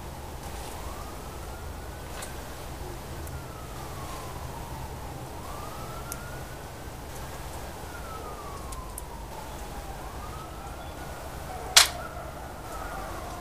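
A single sharp shot near the end, a shot at a rat that misses. Behind it a siren wails faintly, rising and falling in slow sweeps.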